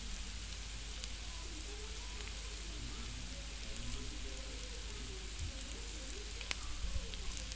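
Wooden spoon stirring soaked rice into a sizzling mutton masala in a pressure cooker, with a steady faint sizzle throughout. A sharp light knock of the spoon on the pot about six and a half seconds in.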